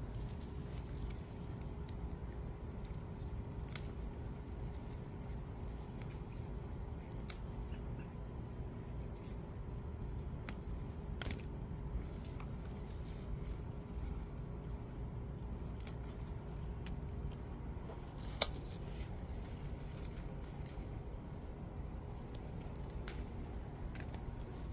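Pea vines handled and pods picked off by hand: a few small sharp snaps and rustles, spaced seconds apart, over a steady low outdoor background.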